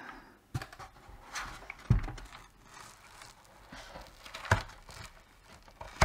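Plastic dashboard housing being handled as its front panel is unplugged and lifted off: scattered clicks and knocks with light rustling, the loudest a dull knock about two seconds in.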